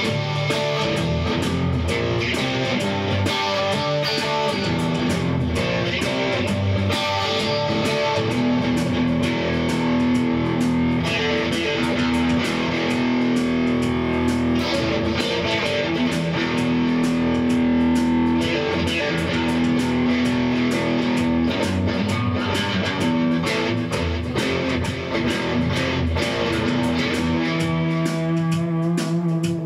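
Instrumental rock music: electric guitar over a drum beat from an electronic drum kit.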